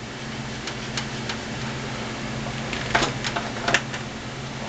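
Desktop computer running with a steady hum, and a handful of sharp clicks, a couple about a second in and a cluster around three seconds in.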